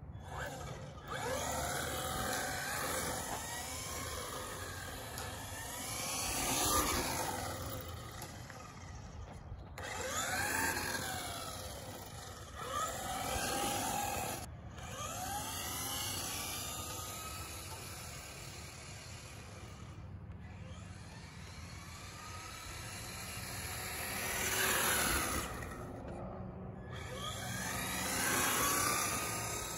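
Traxxas Ford Mustang RC car's electric motor and drivetrain whining, the pitch rising and falling again and again as it speeds up and slows down, with tyre noise on asphalt. The sound drops out briefly a few times.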